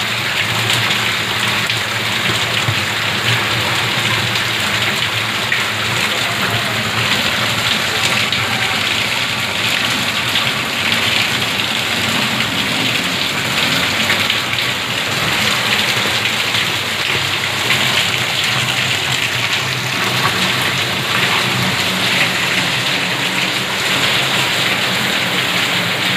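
Heavy rain falling steadily on a paved courtyard and roofs, a loud, even hiss that neither pauses nor changes.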